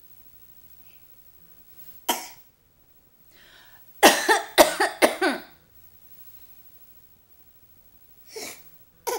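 A baby giving short, high-pitched pretend coughs: one about two seconds in, a quick run of four at around four to five seconds, and two more near the end.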